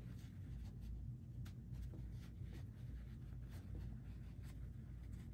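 Faint rustling and light scratching of hands pulling loops of jumbo chenille yarn through the stitches while hand knitting, over a steady low hum.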